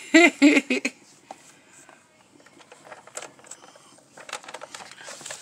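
A short voice sound in the first second, then faint scattered clicks and knocks from a plastic baby toy being grabbed and handled, busier near the end.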